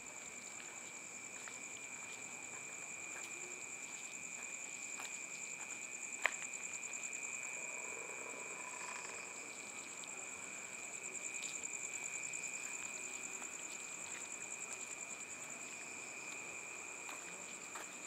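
Crickets trilling steadily in a night chorus at two pitches, one high and one much higher, with a single sharp click about six seconds in.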